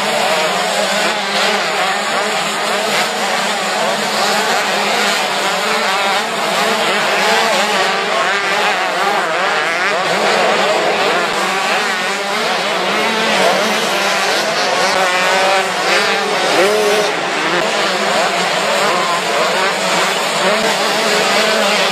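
Several motocross motorcycle engines running hard at once, their pitch rising and falling constantly as the riders rev up and shut off.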